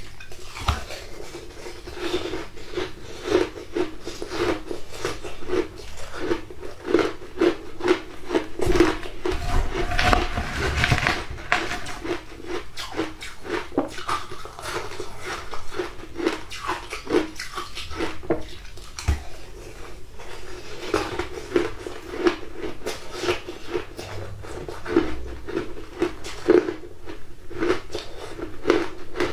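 Shaved ice being bitten and chewed: a dense, irregular run of crisp crunches that goes on without a break.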